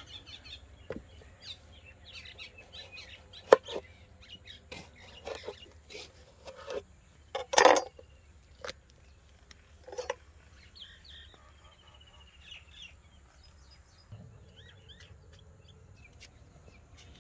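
A knife cutting a melon on a wooden board: scattered clicks and knocks of the blade and pieces, with one sharp knock a few seconds in and a louder, longer crunching cut about halfway through. Faint bird chirps sound in the background.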